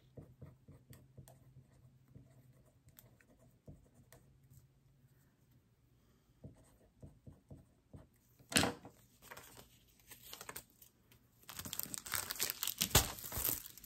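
Faint scratching of a marker writing on a paper label, then plastic packaging rustling and crinkling, loudest near the end, as a diamond painting kit and its bagged drills are handled.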